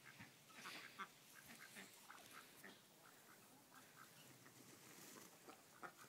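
Domestic ducks quacking faintly, short calls scattered irregularly.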